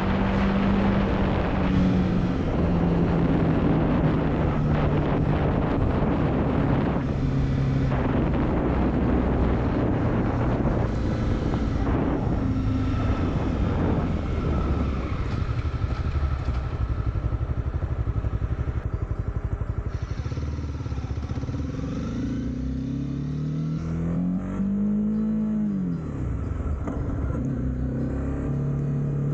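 Honda CB300R's single-cylinder engine running under way. Its pitch eases down in steps through the first half, rises and falls once in a short rev about two-thirds through, and climbs again near the end, over a steady rush of wind and road noise.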